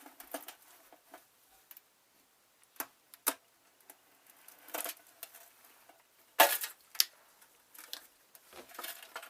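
Sporadic metallic clicks, knocks and scrapes from a screwdriver prying at the soldered seam of an X-ray head's metal casing, with a louder scraping clatter about six and a half seconds in.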